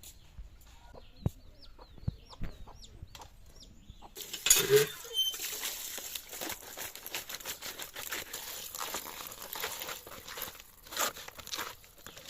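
Chickens clucking, with small repeated peeps at first. About four seconds in a loud squawk cuts in, then a steady crackling hiss continues.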